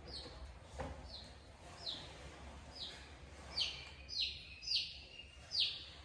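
A small bird chirping repeatedly: about eight short, high calls that each drop in pitch, coming roughly once a second and louder in the second half.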